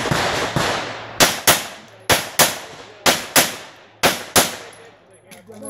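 Pistol fired in four quick pairs, eight shots in all: two shots about a third of a second apart, then a short pause before the next pair.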